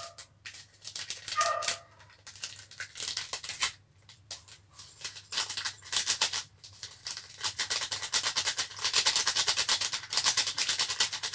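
A plastic sachet of Bon Cabe dried chili flakes being opened and shaken out into a small bowl: a dry rattling crackle of packet plastic and falling flakes. It grows denser about halfway through.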